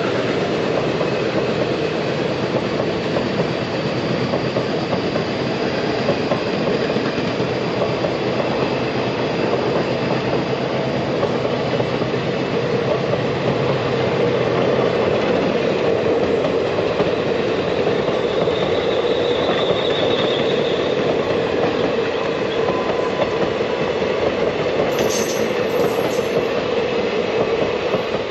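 Express train's passenger coaches rushing past at speed: a steady roar of steel wheels on rail with clickety-clack over the rail joints. A faint high squeal comes and goes about two-thirds of the way through.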